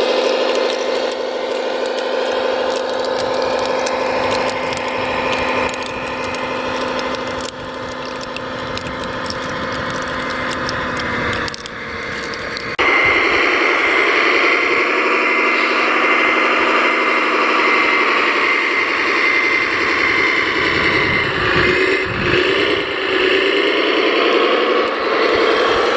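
Hand-built RC construction machines running: a steady motor and gear whine with rattling and scraping. About halfway through the sound changes abruptly to a louder, higher steady whine.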